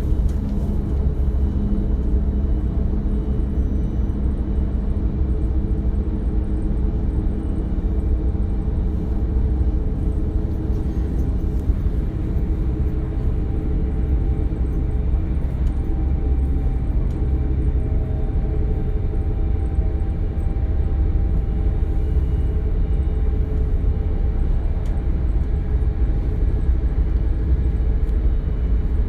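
Interior running noise of a DB Class 425 electric multiple unit: a steady low rumble from the wheels and running gear, with faint steady tones above it.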